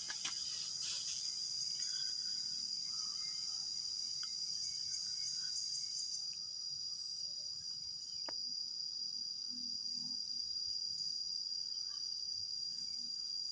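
Steady high-pitched chirring of insects, with a single faint click about eight seconds in.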